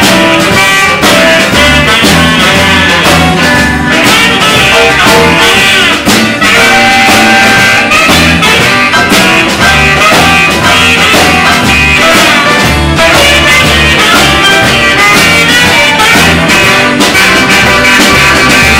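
Live Motown-style band playing a song loudly with a steady beat.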